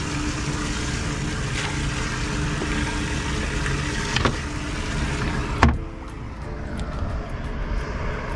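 Water splashing and churning in a boat's aerated live well over a steady rush of wind on the microphone. A sharp knock about five and a half seconds in, after which it is quieter.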